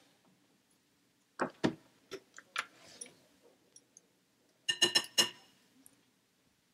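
Kitchen utensils knocking and clinking against bowls or containers while mixing: several sharp separate knocks, then a quick cluster of bright, ringing clinks about five seconds in.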